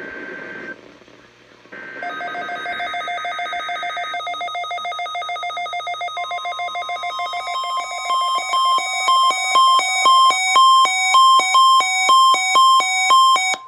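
Electronic alert tones opening a NOAA Weather Radio required weekly test: short static-laden data tones, then a fast pulsing of layered beeps that turns into a louder beeping alternating between notes about twice a second over a steady high tone.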